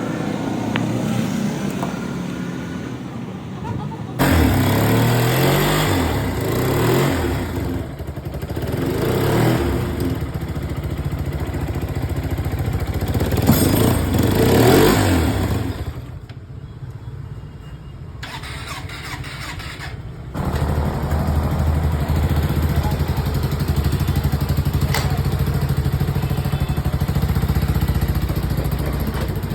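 Hyosung motorcycle engine starting about four seconds in and revved several times, then dropping away for a few seconds before running again at a steady idle.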